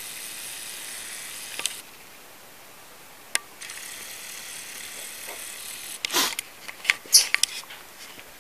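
Handling noise from a phone being moved around: a steady hiss that cuts in and out, a few sharp clicks, then a burst of loud rustling and knocks about six seconds in.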